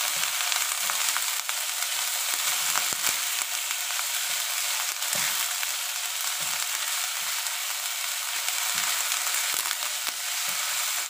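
Chinese flowering chives and carrot strips sizzling steadily in hot oil in a wok while being stirred, with soft scrapes and knocks of the spatula against the pan.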